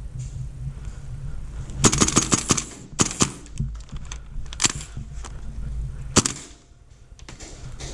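Gas blowback airsoft rifle firing: a quick burst of about eight shots about two seconds in, then single shots spaced a second or more apart.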